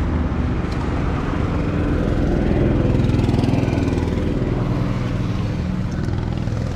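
Kawasaki Versys 650's parallel-twin engine running steadily under way, with wind and road noise over an action camera's built-in microphone.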